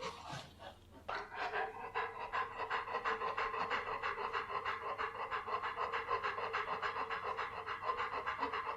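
A dog panting fast, with quick, evenly repeated breaths. The panting breaks off briefly about half a second in and picks up again at about a second.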